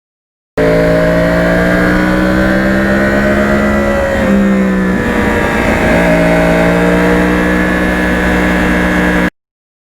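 2009 Yamaha R1 crossplane inline-four engine running steadily under way. Its pitch wavers and dips between about four and six seconds in, then settles back. The sound cuts in and out abruptly.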